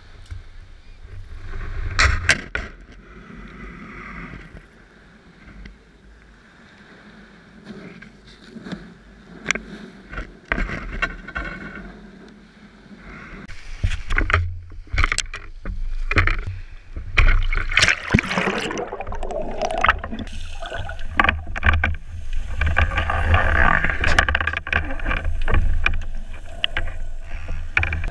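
Sound muffled through a GoPro's waterproof housing: wind and low rumble at the shoreline with knocks and scrapes from handling, then water sloshing and splashing around the camera in the second half as it goes into the sea.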